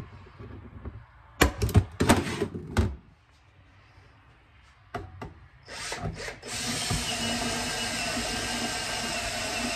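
Metal parts clank and knock together a few times. About six and a half seconds in, a power tool starts and runs steadily with a hiss and a steady whine.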